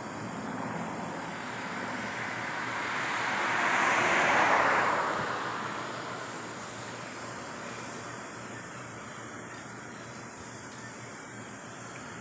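A vehicle passing by: a smooth rushing noise that swells to a peak about four seconds in and then fades away, with a brief knock about seven seconds in.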